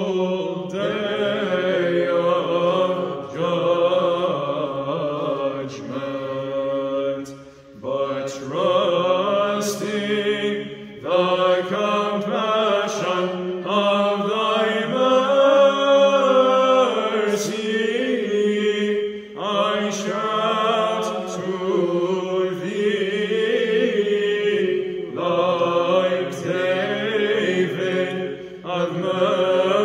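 A small group chanting Byzantine chant in English: a melody line sung over a steady held drone (the ison), breaking off briefly twice.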